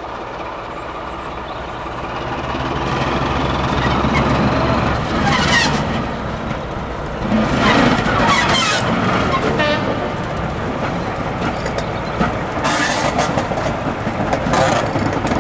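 Class 14 diesel-hydraulic shunting locomotive D9555, its diesel engine running and getting louder as it approaches and passes along the track. Several short, harsher bursts of noise sound over the engine about 5, 8 and 13 seconds in.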